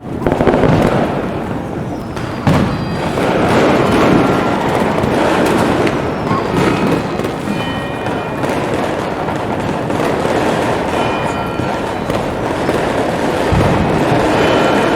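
Fireworks exploding and crackling in a dense, continuous din, with heavy thumps about half a second in, at two and a half seconds and near the end. Clusters of bell-like ringing tones sound out several times over it.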